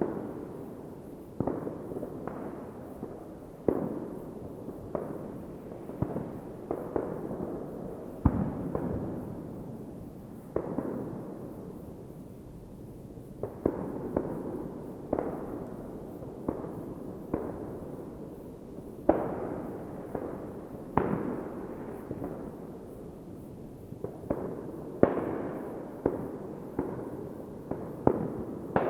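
Fireworks going off: a continuous rumble of distant bursts with many sharper, closer bangs at irregular intervals, each followed by a rolling echo.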